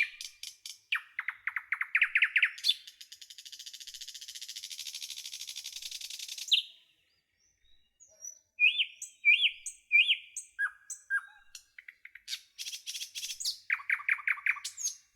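Songbird singing: varied chirps and whistled notes, with a long, fast, buzzy trill from about three seconds in, a brief pause, three rising whistled notes, and a quick trill near the end.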